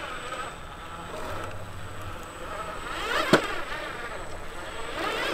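Electric motor and drivetrain of a 1/10-scale RC crawler truck whining, rising and falling in pitch as the throttle is worked. A sharp knock comes a little past halfway.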